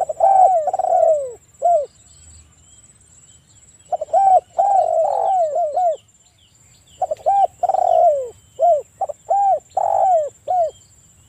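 Spotted dove (tekukur) cooing: three calls, each a quick run of short rising-and-falling coos, with gaps of about a second between them.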